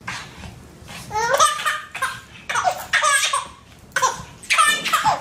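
A baby laughing in several short bursts of high-pitched giggles.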